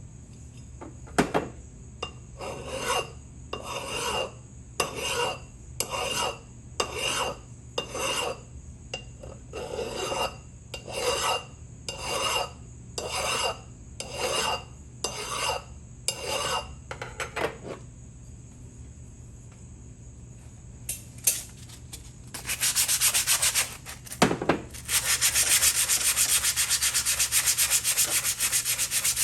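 Slow, even strokes of abrasive rubbing on the metal of a hand ratchet, about one a second, stopping after about 17 seconds. After a short pause the scrubbing starts again, faster and louder, and carries on steadily.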